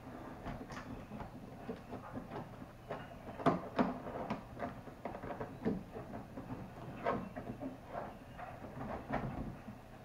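Hands handling and opening a cardboard monitor box: an irregular run of cardboard scrapes, rustles and taps, with two louder knocks about three and a half seconds in.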